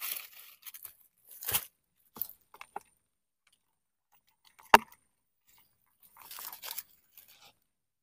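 Dry leaf litter and soil crunching and rustling as they are pulled apart by hand, in short irregular bursts, with one sharp click about five seconds in.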